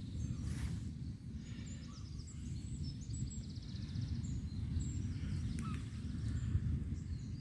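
Wind rumbling and buffeting on the microphone, with faint high chirps scattered over it.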